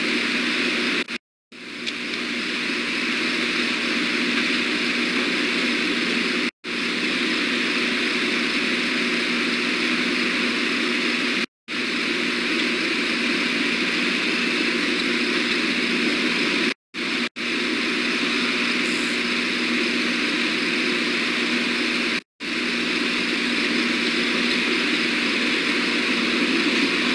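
Steady outdoor background hiss picked up by the osprey nest camera's microphone, cut by sudden, brief total dropouts of the audio about every five seconds.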